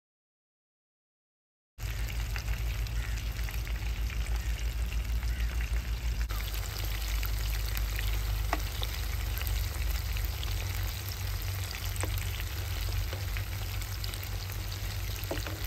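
After about two seconds of silence, chicken pakoras deep-frying in a wok of hot oil: a steady sizzle and crackle of bubbling oil, with a few light clicks of a metal spoon turning them. The oil is still bubbling hard around the pieces, which the cook takes as the sign they are not yet fully fried.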